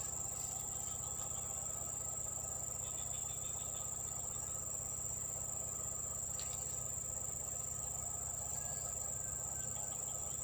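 Insects trilling in one steady, unbroken high-pitched chorus.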